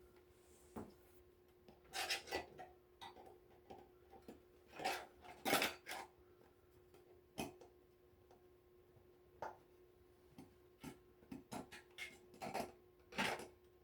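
Heater casing parts being handled and fitted back together: a dozen or so scattered clicks, knocks and scrapes at irregular times, the loudest around five and a half seconds in, over a faint steady hum.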